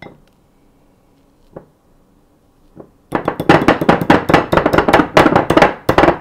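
A wire whisk knocking rapidly and loudly against a ceramic mixing bowl, about ten sharp clacks a second, beginning about three seconds in after a few faint clicks.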